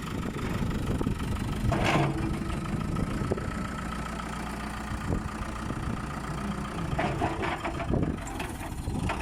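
JCB backhoe loader's diesel engine running steadily at idle, now repaired of its stop-start stalling, with a few short knocks and clatters over it.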